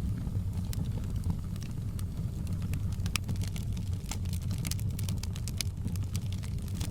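Wood fire crackling in a fireplace: irregular sharp pops and snaps over a steady low rumble, with the pops coming thicker and louder in the second half.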